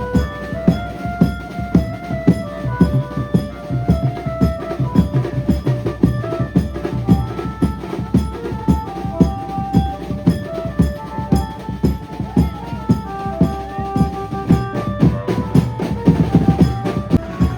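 Maharashtrian banjo band playing loudly: a melody on the electric banjo over fast, steady drumming with bass drum and snare.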